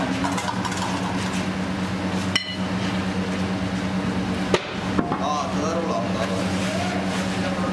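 Steady hum of foundry machinery. A sharp knock comes about two and a half seconds in and two more follow close together near the middle. Voices talk in the background through the second half.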